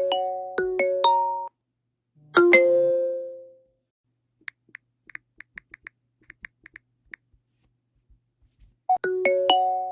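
JusTalk app incoming-call ringtone playing on a Samsung Galaxy S22, a repeating marimba-like melody of bell-like notes, stops about a second and a half in. A single two-note chime follows and rings down, then a run of faint quick clicks, and the ringtone melody starts again near the end.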